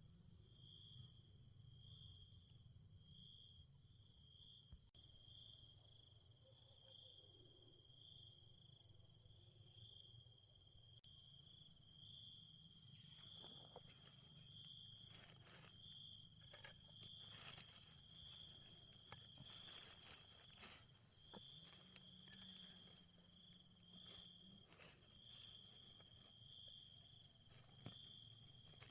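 Faint insect chorus: a steady high trill with a pulsing chirp about once a second. Scattered light clicks and taps begin about halfway through.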